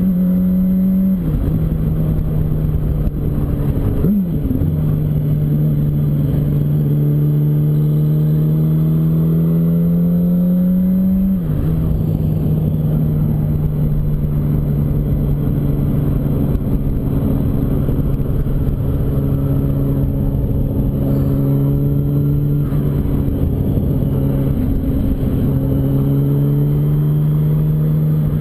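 Yamaha R1's inline-four engine running at road speed, its note rising slowly under throttle, with sudden drops in pitch about a second in, around four seconds in and again near the middle.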